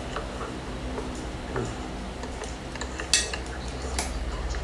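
Wooden spatula stirring and tossing egg noodles and vegetables in a metal pot: soft scraping with scattered knocks against the pot. The sharpest knock comes about three seconds in, with another a second later.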